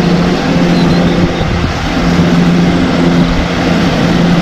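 Wheel loader's diesel engine running steadily as its V-plow pushes through snow: a constant engine hum over a broad noise.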